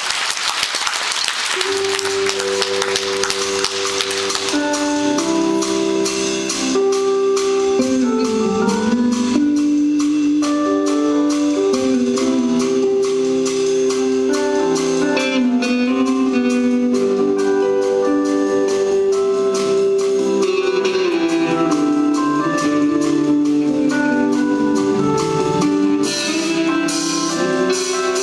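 Live band's instrumental intro: a melody of clear, ringing pitched notes over held chords. Crowd applause fills the first few seconds and fades as the music builds.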